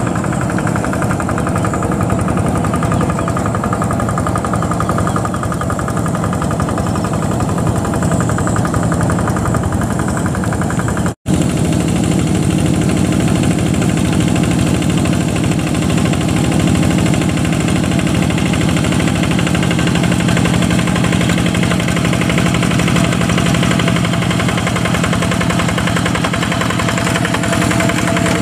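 Yanmar single-cylinder diesel engine of a G1000 two-wheel hand tractor running steadily while it ploughs soft, wet paddy soil. The sound cuts out for an instant about eleven seconds in.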